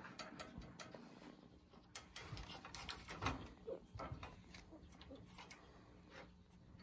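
Light, irregular clicks and rattles of a wire pet cage as kittens bat at a wand toy poked through its bars, the toy's stick tapping against the wire.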